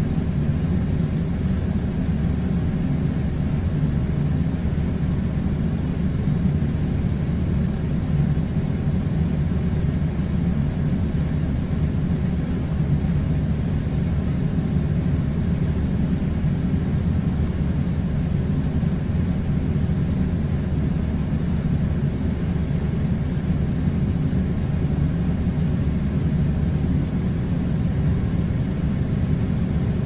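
A steady low rumbling drone, even in level throughout, with no separate knocks or other events.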